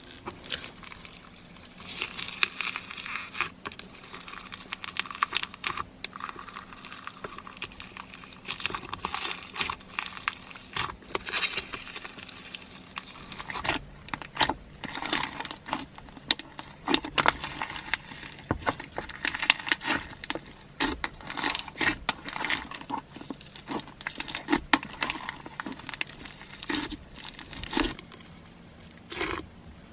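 Slime being squeezed and poked by hand, giving an irregular run of crinkling, crackling sounds and sharp little pops. The pops come thicker and louder from about halfway through.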